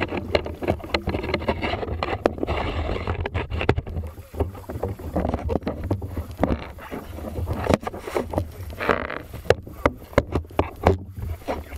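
Shallow water sloshing and splashing as people wade through a creek, with many sharp knocks and clicks throughout.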